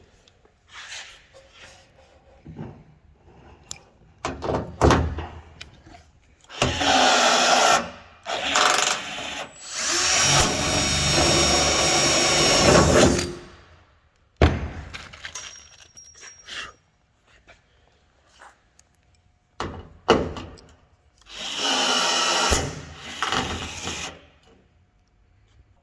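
Power drill running in three long bursts of a few seconds each, with short sharp knocks and clicks in between as parts are worked on.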